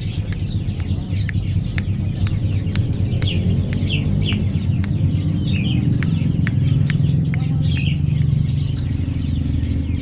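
Fischer's lovebird giving short, high chirps every second or so, with many sharp clicks scattered between them. A steady low rumble runs underneath and is the loudest sound.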